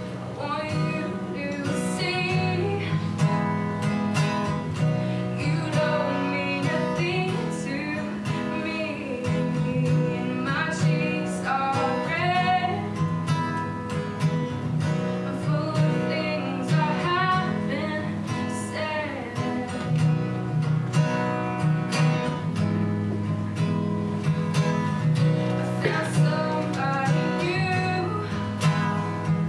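A woman singing to her own acoustic guitar, the guitar strummed in a steady rhythm under her melody.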